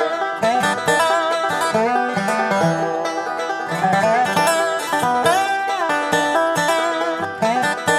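Bluegrass music led by a fast-picked banjo, with plucked string accompaniment.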